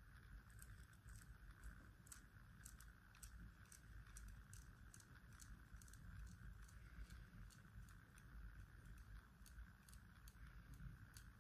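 Near silence: faint room tone with a steady faint hum and scattered faint ticks.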